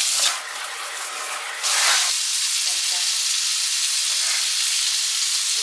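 Water running from a tap into a sink as paint-stained jeans are rinsed of soap. The flow gets stronger about two seconds in and then runs steadily.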